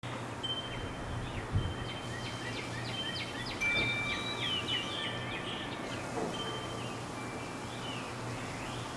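Songbirds calling and singing: thin whistled notes and a quick series of down-slurred chirps, busiest in the first few seconds and sparser after, over a steady low hum.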